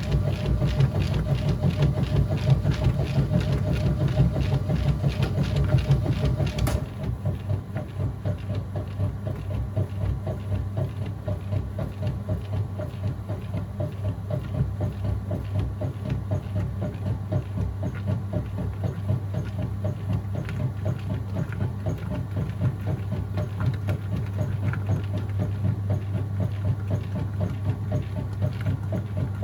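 Whirlpool top-load washing machine running mid-cycle, with a steady low hum under a fast rhythmic churning. About seven seconds in, a hiss stops abruptly with a click and the machine goes quieter, the churning carrying on.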